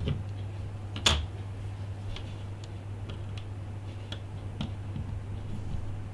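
Small, sharp clicks and light ticks of tiny tools and parts being handled while working on an iPhone 5, one sharper click about a second in, over a steady low hum.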